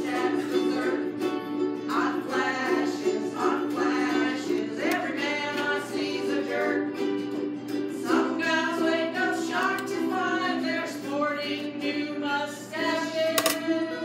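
Ukuleles strumming a song, with a voice singing over them.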